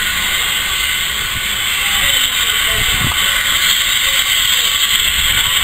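Steam locomotive dressed as Thomas the Tank Engine moving slowly, with a loud, steady hiss of escaping steam over a low rumble.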